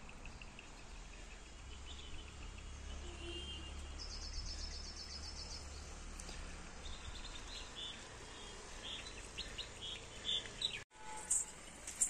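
Small birds chirping outdoors over a steady low rumble, with a quick run of trilled notes about four seconds in and a series of short chirps later on. The sound cuts out for a moment near the end.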